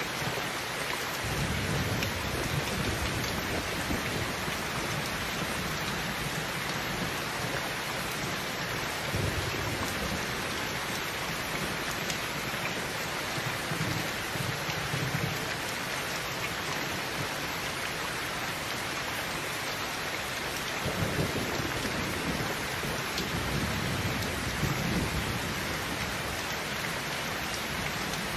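Heavy rain pouring steadily. Low rumbles of thunder roll in several times, the longest about two thirds of the way through.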